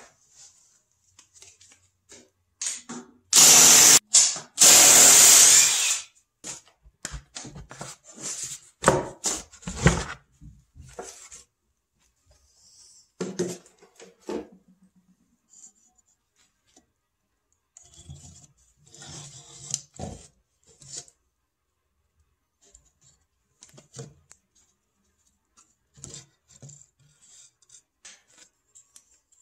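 A power drill backing out screws in two short runs a few seconds in. Then wood knocks, scrapes and rubs as the plywood swarm trap is opened and its wooden frames are lifted out.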